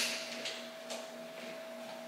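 Screwdriver working a screw out of a steel breaker panel cover: a sharp metallic click at the start, then a few faint scrapes and ticks, over a steady faint hum.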